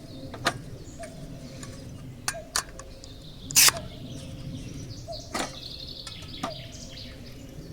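A handful of sharp clicks and knocks from handling camp cooking gear, the loudest about three and a half seconds in. Birds chirp in the background.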